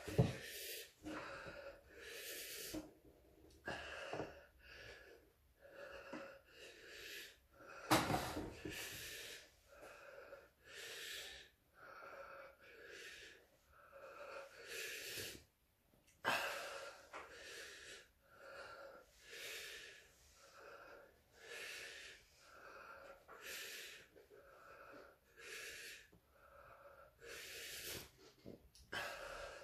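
A man breathing hard through an open mouth, with short wheezy breaths in and out about once or twice a second and a couple of louder gasps. This is panting against the burn of capsaicin after eating hot chili peppers.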